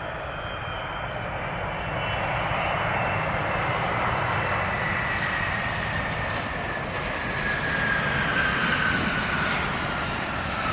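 Boeing 777 jet engines running as the twin-jet airliner rolls past close by on the runway. The engine noise swells over the first couple of seconds, and a whine falls steadily in pitch as it goes by.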